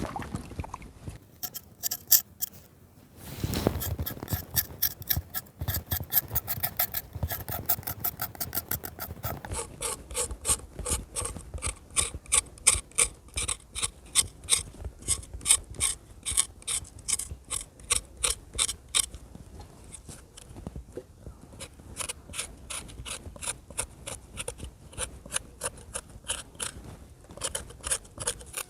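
Rhythmic scraping strokes of a hand tool on raw potatoes, about three or four a second, with a brief pause about three seconds in.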